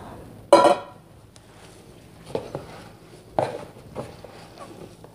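Grated green papaya, salted and wet, being squeezed and kneaded by gloved hands in a plastic bowl: soft, irregular squishes as the juice is pressed out.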